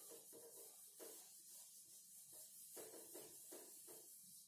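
Whiteboard duster wiped back and forth over the board, a faint rubbing hiss in short repeated strokes, about two or three a second.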